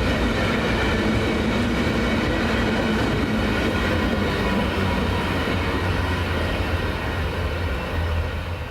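Loaded cars of a southbound aggregate freight train rolling past on the rails: a steady, loud rumble of wheels on track, with thin high steady tones of wheel squeal over it.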